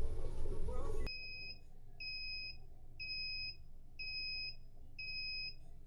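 A lab instrument's electronic alarm beeping five times, evenly spaced about a second apart, each beep about half a second long, warning of an error or problem with the run. Background music cuts off suddenly about a second in, just before the beeps start.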